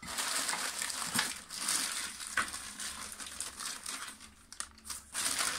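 Thin plastic bags crinkling and rustling as hands rummage through them and lift one out, easing off briefly before a short louder crinkle near the end.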